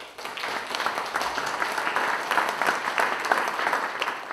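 Audience applauding, many hands clapping together; the applause builds quickly and then holds steady.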